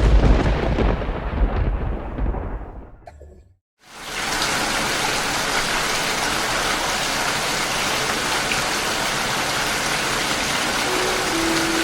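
A thunderclap rumbles and fades over about three seconds. After a brief silence, steady heavy rain begins.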